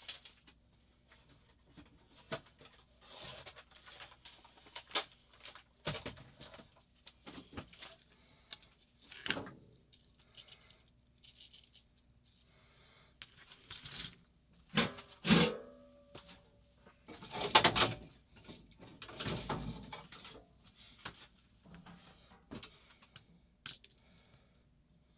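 Small metal screws and parts clicking and rattling as they are picked through and handled, with several louder clatters about two thirds of the way through.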